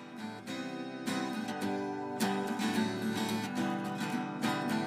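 Intro music: strummed acoustic guitar.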